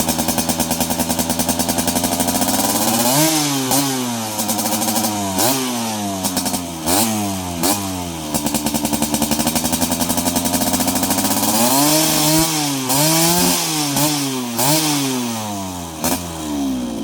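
Yamaha F1Z R's single-cylinder two-stroke engine idling, then blipped up and down in quick revs, settling back to idle and blipped again in a second run, as the stock engine is being tuned.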